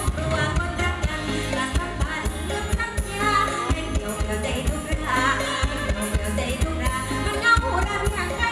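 Live Isan mor lam band music played loud through a PA, with a woman singing over a steady drum beat and bass.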